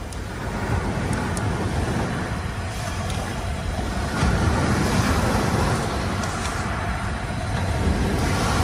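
Steady rushing of sea surf on a sandy beach, with wind rumbling on the microphone; it swells a little about four seconds in.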